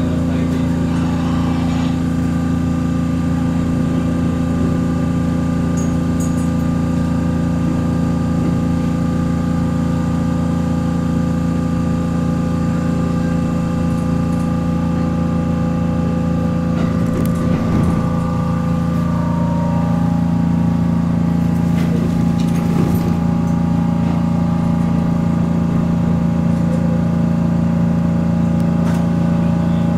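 ET127 series electric train moving slowly through station tracks, heard from inside the passenger cabin: a steady electrical hum made of several held tones, one of which shifts in pitch about twenty seconds in.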